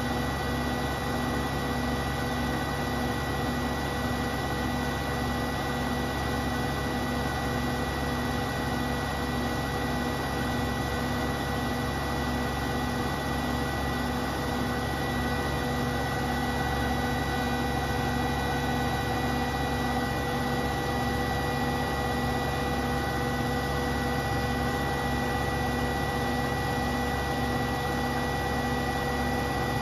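Beko WTK74011W front-loading washing machine on a 1400 rpm spin: the drum spinning fast at a steady speed, with a steady motor whine and a regular pulsing hum underneath.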